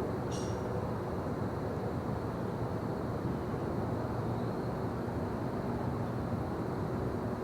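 Daytime forest ambience: a steady low rumbling background noise, with one short high bird chirp about a third of a second in and a faint high note around the middle.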